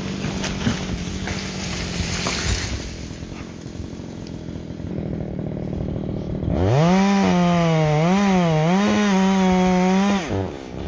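Echo CS-620PW two-stroke chainsaw running. About two-thirds of the way through it is revved up quickly to full throttle, holds there with its speed wavering, then drops back off near the end.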